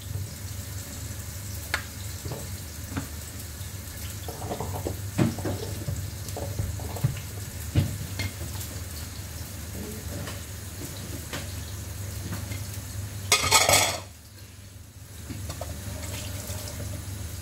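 Sliced shallots frying in a wok with a low, steady sizzle over a low hum, with scattered clicks and clinks of utensils and containers being handled. About 13 seconds in comes a short, loud rushing hiss lasting under a second.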